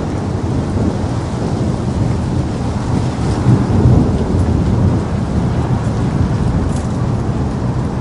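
Steady rain with a low rumble of thunder that swells up about halfway through.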